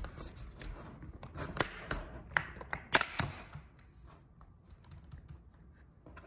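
Sharp clicks as the bottom cover of an LG Gram laptop is pried up by hand and its clips release, about five in the first three and a half seconds, then quieter handling of the case.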